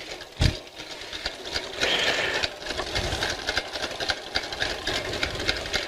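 Stand mixer running, beating butter, sugar and egg into cake batter with a fast, even rattling whir; a single thump about half a second in.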